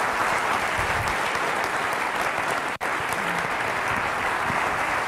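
Audience applauding steadily in an auditorium, a dense even clapping, with a momentary break a little under three seconds in.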